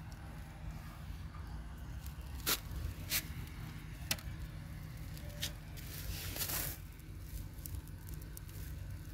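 Close handling sounds: three sharp clicks about two and a half, three and four seconds in, then a short scraping rustle a little before seven seconds, over a steady low rumble.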